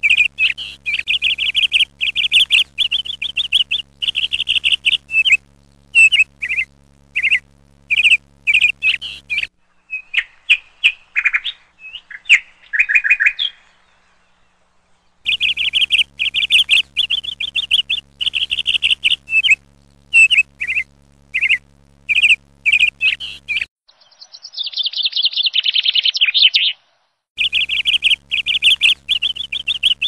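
Small songbirds chirping: quick runs of high tweets in bursts, with a short, dense trill about twenty-five seconds in. A faint low hum comes and goes between passages.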